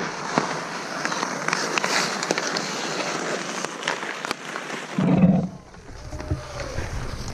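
Ice skates scraping and hockey sticks clacking on the puck and ice during play, a steady rasp with frequent sharp clicks. About five seconds in, a loud low thump and rumble as the camera is handled and swung away, then quieter.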